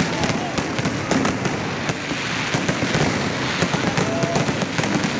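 Fireworks display: aerial shells bursting and crackling overhead, a dense continuous crackle dotted with many sharp cracks and bangs at irregular intervals.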